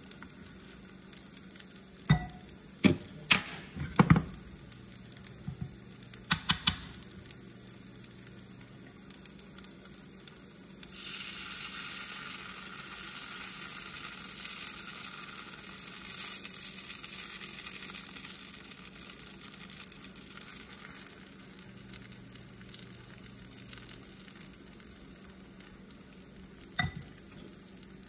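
Green onion pancake batter frying in oil in a nonstick skillet, with a few sharp clicks of a spatula against the pan in the first seconds. About 11 s in, the sizzle gets suddenly louder as more batter is spooned into the hot pan, then settles back after about ten seconds.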